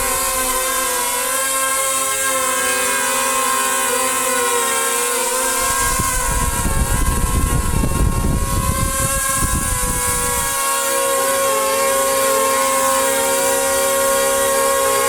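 Quadcopter drone's motors and propellers spinning up with a steady high whine whose pitch wavers slightly. From about five to ten seconds in, a low rumble of buffeting air joins it.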